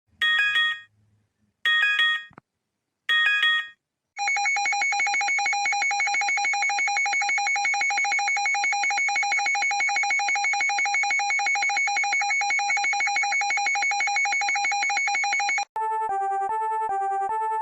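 Emergency alert alarm tones: three short electronic chimes, then a long steady buzzing alarm tone, which near the end changes to a rapid alternating high-low two-note pattern.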